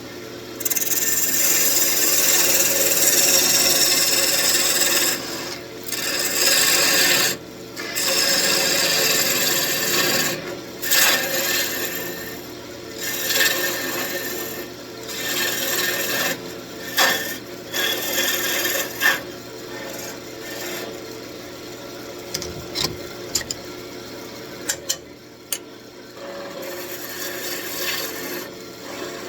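Turning tool cutting into spinning wood on a wood lathe: a rough hissing cut in passes of a few seconds each, broken by short pauses, over the steady hum of the lathe. The passes get lighter and more broken in the second half, with a few sharp clicks.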